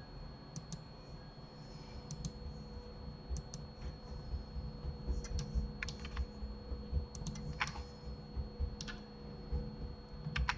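Irregular clicks and taps at a computer keyboard and mouse, a few to several per second, over a faint steady electrical hum.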